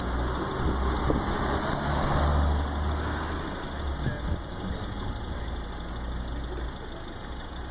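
Steady low rumble of outdoor street background noise, a little louder in the first three and a half seconds.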